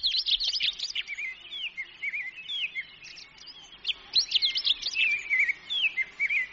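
Birds singing: a fast run of chirps and slurred, bending whistles, with the busiest stretches at the start and again about four seconds in.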